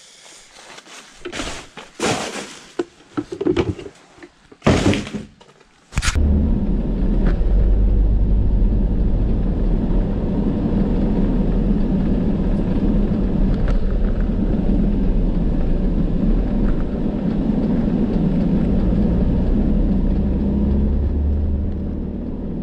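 A plastic bin bag being handled, rustling and knocking, for about six seconds; then a sudden switch to the steady low rumble and hum of a vehicle driving on the road, heard from inside the cab, easing off near the end.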